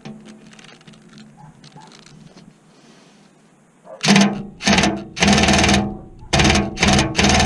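Cordless drill-driver run in about six short trigger bursts, starting about four seconds in, trying to back out a rusted sheet-metal screw that won't break loose.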